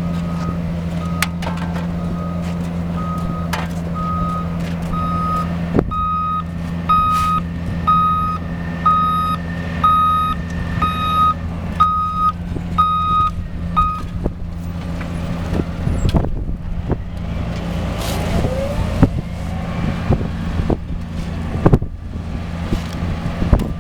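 Heavy diesel machinery running steadily under a reversing alarm beeping at an even pace, about three beeps every two seconds. The alarm stops a little past halfway, and scattered knocks and clanks follow.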